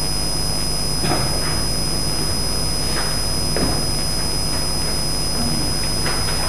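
Steady hiss and low electrical hum of a noisy recording chain, with a few faint short sounds scattered through it.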